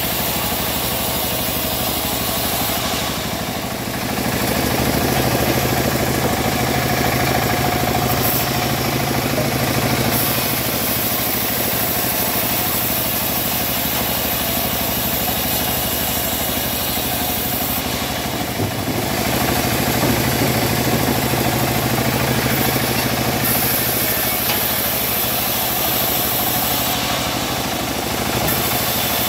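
Homemade band sawmill running steadily, its blade ripping lengthwise through a teak log, with a constant machine hum under the cutting noise. The sound dips briefly twice, a few seconds in and about two-thirds of the way through.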